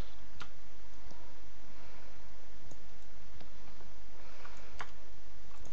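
Computer mouse clicking a few scattered times, over a steady background hiss and low hum from the recording.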